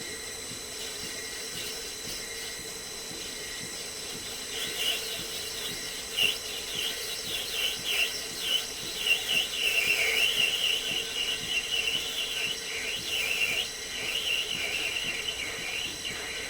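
Lathe running with a steady motor whine. From about four or five seconds in, a high, irregular, chirping squeal comes and goes as the ball-turning attachment's tool cuts the workpiece, fading near the end.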